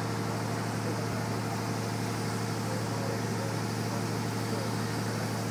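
A steady low mechanical hum, like an idling engine, with an even hiss over it.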